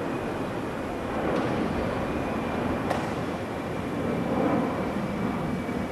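Steady engine noise with a faint high whine running through it.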